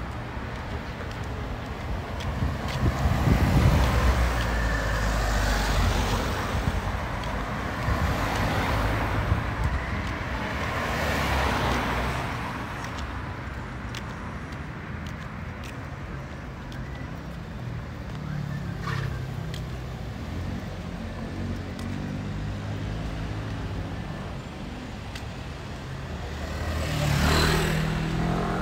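Street traffic: cars passing one after another with a steady low rumble of engines and tyres, swelling as each goes by, with one car passing close near the end.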